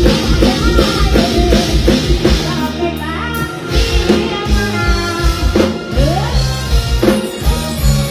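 Live amplified band playing upbeat Isan mor lam dance music: a drum kit with a regular kick drum and a bass line under a woman singing into a microphone. The kick drum drops out briefly about three seconds in, then the beat returns.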